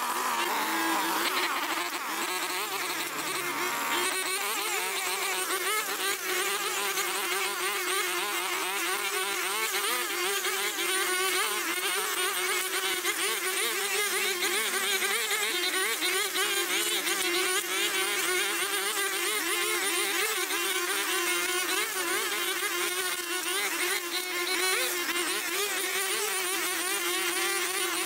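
Petrol brush cutter's small engine running at high speed, its pitch wavering up and down as it cuts through dense overgrown grass.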